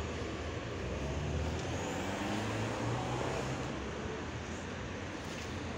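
City bus engines running, a low hum that shifts in pitch during the first few seconds, over a steady traffic hiss.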